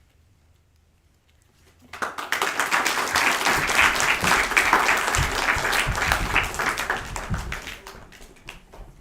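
An audience applauding: the clapping starts suddenly about two seconds in, holds for about five seconds, then dies away.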